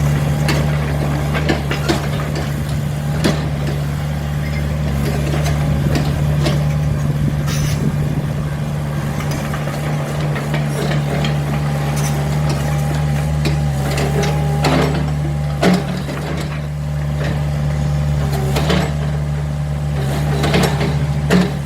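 Hitachi mini excavator's diesel engine running steadily under work, with scattered sharp knocks and clanks from the machine.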